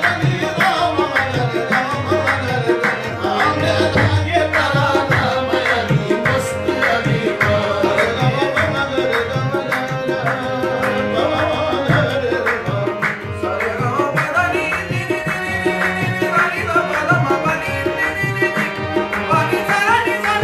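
Live qawwali: two harmoniums play the held melody while a tabla keeps a steady, brisk rhythm of sharp strokes, and the singers' voices run over them.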